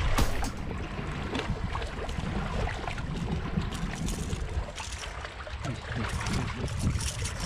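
Wind rumbling on the microphone and sea water washing against shoreline rocks, with scattered light clicks and rustles as a caught needlefish is handled and unhooked.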